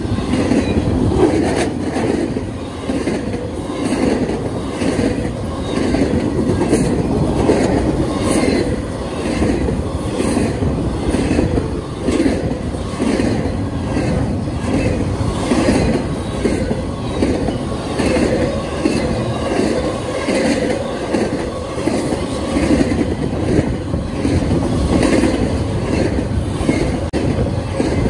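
Double-stack intermodal freight cars of a Norfolk Southern train rolling past close by: a steady, loud rumble of steel wheels on rail with a regular clickety-clack, a little under two clacks a second.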